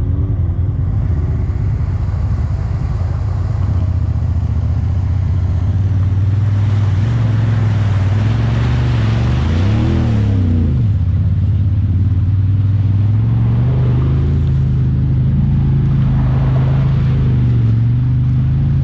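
A Honda Talon 1000R side-by-side's parallel-twin engine runs steadily under way. About ten seconds in, the engine revs up and back down, with a rushing noise that builds and fades around it.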